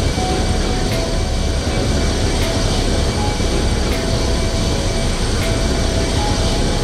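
Jet engines of the An-225 Mriya, Progress D-18T turbofans, running: a steady, dense noise with a deep rumble and a faint high whine. A faint click repeats about every second and a half.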